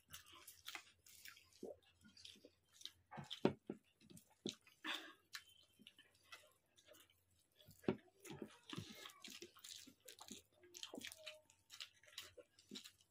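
People eating rice and fried fritters with their hands: wet chewing and mouth smacks mixed with short clicks and squishes of fingers working food on plastic plates. A couple of louder clicks come about three and a half and eight seconds in.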